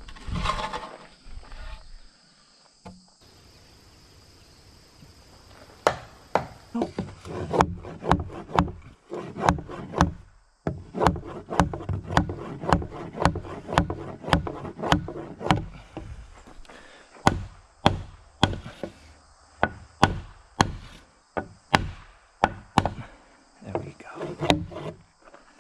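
Hammer blows on a heavy wooden beam, about two a second in several runs with short pauses, starting about six seconds in: the beam is being knocked into its joint on a post-and-beam timber frame.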